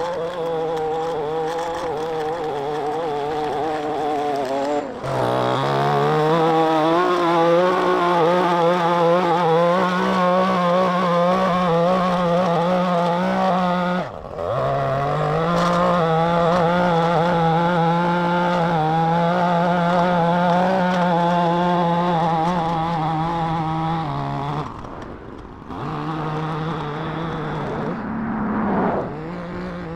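Gas-powered stick edger engine running at high throttle as its blade cuts along a sidewalk edge. The engine note sags and picks back up about three times.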